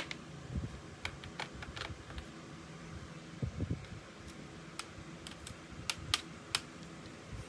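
Scattered light clicks and taps from hands and tools working on a laptop during a battery replacement, over the steady hum of a room fan.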